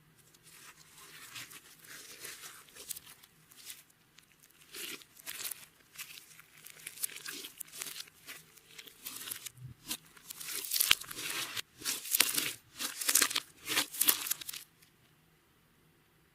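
Clear slime being squeezed and worked by hand, crackling and popping in uneven bursts that grow louder, then stop abruptly near the end.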